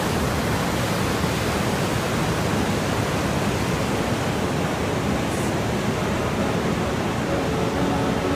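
Ocean surf washing in over rocks and sand: a steady, even rush of noise with a low rumble, as of wind buffeting the phone's microphone.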